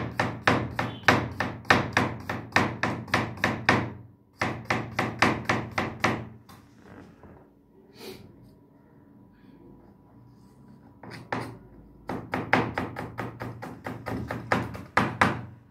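Chef's knife rapidly slicing a carrot on a plastic cutting board, each stroke a sharp knock on the board at about five a second. Two runs of chopping are followed by a pause with only a few single knocks, then a third run near the end.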